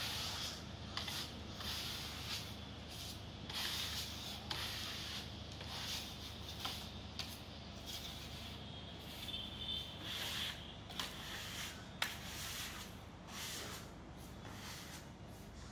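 Steel trowels scraping wet screeding paste across a wall in repeated short strokes, with one sharp tap about three-quarters of the way through.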